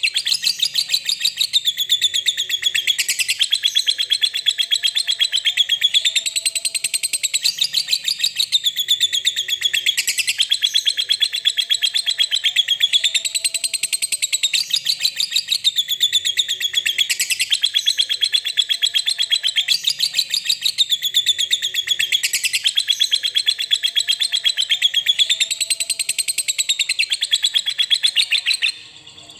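Lovebird singing its long 'ngekek' chatter: an unbroken, very rapid, high-pitched trill that swells and falls in pitch in a repeating cycle about every three seconds, then stops abruptly near the end. This is the long ngekek song that bird keepers play to set other lovebirds singing.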